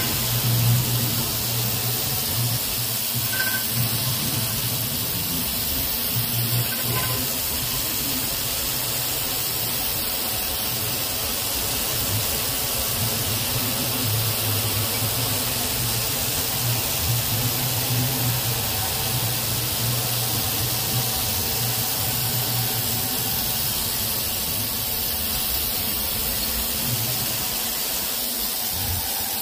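CNC machining centre rough-milling steel with a bullnose face mill at a 2.8 mm depth of cut, cooled by a blast of dry air: a continuous hiss over the low hum of the cutter working.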